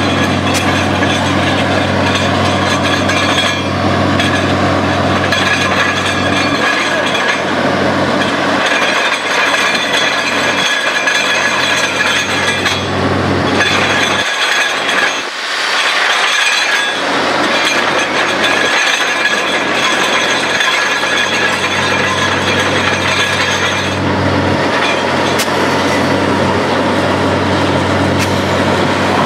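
Truck-mounted borewell drilling rig running loud and steady: engine drone with the rotating drill rod and the rush of compressed air blowing rock cuttings out of the hole. The low engine hum drops away briefly about halfway through.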